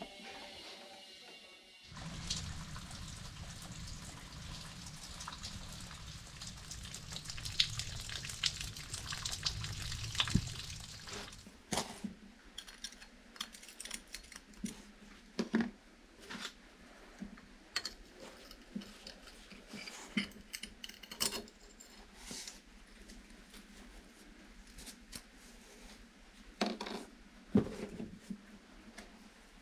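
Liquid pouring and splashing for about ten seconds, starting about two seconds in, followed by scattered light clinks and knocks of small metal parts being handled.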